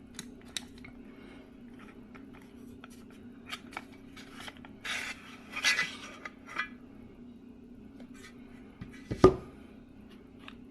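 Small objects being handled on a table: scattered light clicks and taps, a stretch of rustling about five seconds in, and one loud knock about nine seconds in, over a low steady hum.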